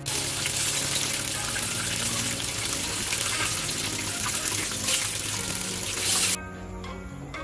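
Breaded cutlet deep-frying in hot oil in a steel pot: steady loud sizzling and crackling. It cuts off suddenly about six seconds in, leaving background music.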